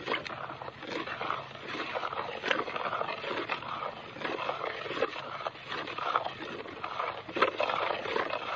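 Wooden stick stirring fertilizer solution in an enamel bucket: irregular sloshing of the water with scrapes and knocks of the stick against the bucket, mixing the fertilizer so it dissolves.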